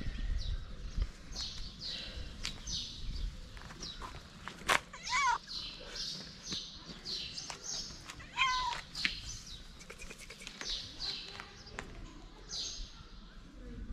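Birds chirping over and over in short, high, downward-sweeping notes, with a sharp click about four and a half seconds in and two brief lower rising calls, one near five seconds and one near eight and a half.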